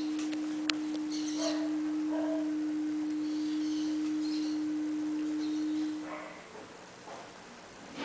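Steady single test tone from a tracking-test record playing on a Gradiente RP-II turntable: the level-2 tracking band, which the cartridge now tracks much better. The tone cuts off about six seconds in.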